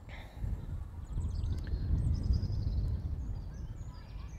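Wind buffeting the microphone as a gusty low rumble, strongest in the middle, with a small bird singing a run of high chirps over it.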